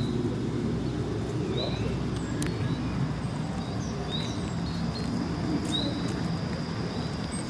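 Small songbirds chirping, short high chirps every second or so, over a steady low background rumble of city noise.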